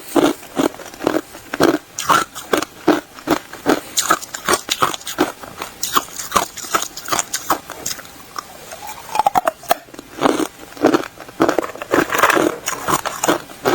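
A person biting and chewing ice, with crisp crunches about twice a second and a short lull about eight seconds in before the crunching picks up again.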